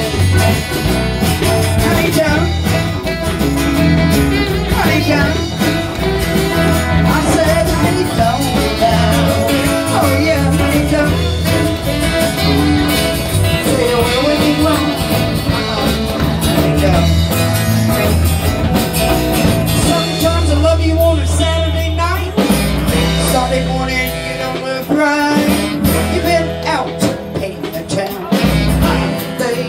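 Live band playing a rock-and-roll song: acoustic guitars, drums and saxophone.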